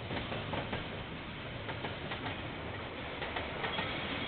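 Container freight train rolling past, a steady rumble with the wagon wheels clicking sharply over the rail joints, heard through a security camera's microphone.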